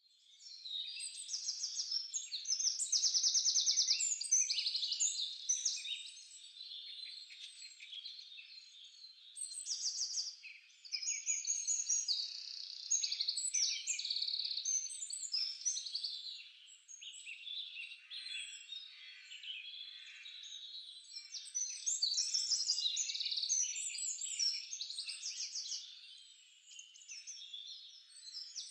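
A chorus of several birds singing and calling over one another: high chirps and quick trills that swell and ease in phrases of a few seconds.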